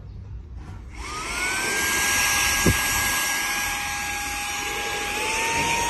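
Cordless handheld vacuum cleaner motor starting up about a second in with a rising whine, then running steadily with a high whine and the rush of air. There is one short knock near the middle, and the motor's pitch shifts near the end.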